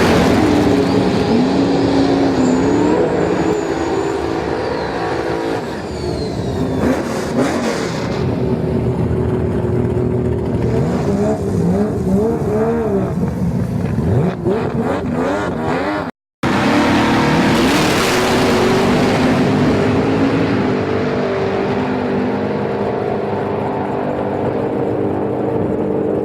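High-powered drag race car engines running loud, revving and accelerating hard, their pitch climbing and dropping through gear changes, with a split-second cut to silence about two-thirds of the way through.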